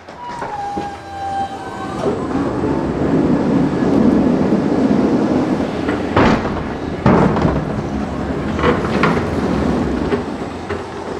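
A pallet truck being pulled with a loaded pallet out of a trailer: the wheels rumble and rattle over the floor, with two sharp knocks about six and seven seconds in. A short falling squeal comes in the first two seconds.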